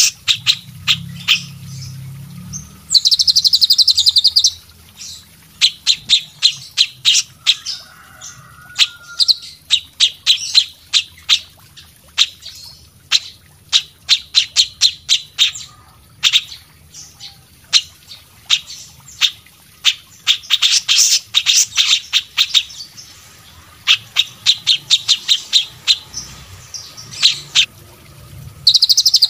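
Layered songs of cage songbirds (cililin, cucak cungkok, kapas tembak and cucak jenggot): a busy run of sharp, high chip and whistle notes in quick succession. Fast buzzing trills break in about three seconds in, again around twenty seconds in, and just before the end.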